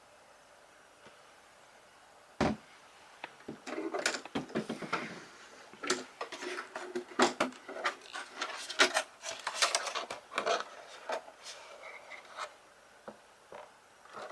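Irregular clicking and rattling of the hard plastic parts and crawler tracks of a Kyosho Blizzard FR radio-controlled snow vehicle model, starting with a sharp knock about two seconds in.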